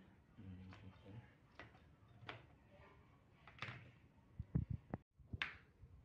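Kitchen knife chopping bitter gourd on a cutting board: sharp single cuts about once a second, with a quick run of heavier thuds about four and a half seconds in.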